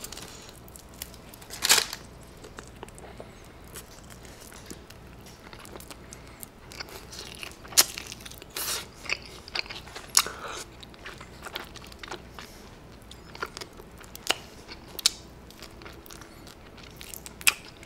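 Fried chicken being bitten and chewed close to the microphone: irregular crisp crunches and mouth clicks, a few of them louder, as meat is gnawed off the bone.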